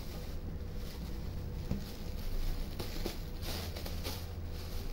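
Light rustling and a few soft taps over a steady low hum.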